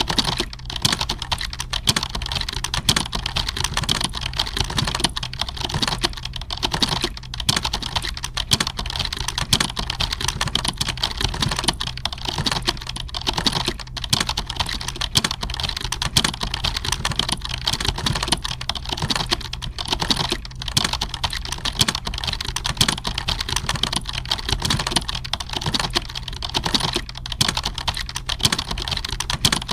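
Computer keyboard typing: fast, unbroken key clicks that pile closely on one another, over a steady low hum.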